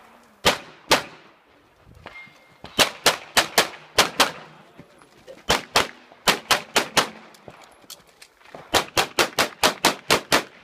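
Tanfoglio pistol firing an IPSC course of fire: about twenty shots, in fast strings of five to eight shots with short pauses between them as the shooter moves between target arrays.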